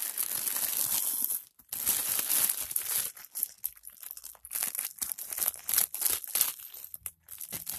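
Clear plastic packaging bag crinkling in irregular bursts as it is handled and opened to get at the figure pieces inside.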